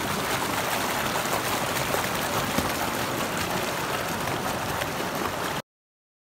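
Mountain stream rushing over rocks in small cascades, a steady hiss of water that cuts off suddenly near the end.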